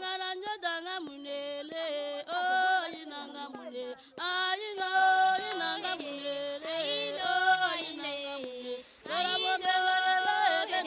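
Several voices singing an unaccompanied, yodel-like chant in phrases, with brief breaks about four and nine seconds in.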